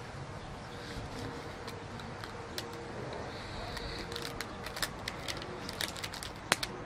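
Rubber bands being stretched over a watermelon and let go, each one snapping against the rind: a run of sharp snaps, sparse at first and coming faster in the second half, with one louder snap near the end.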